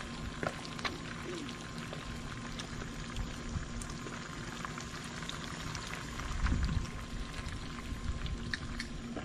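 Whole fish frying in a pan of hot oil over a charcoal grill, the oil sizzling and crackling steadily with scattered pops. A brief low rumble comes about six and a half seconds in.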